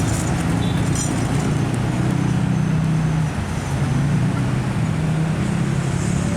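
Large diesel engine running under load, a low steady drone that steps up and down in pitch a few times, over a continuous rumble.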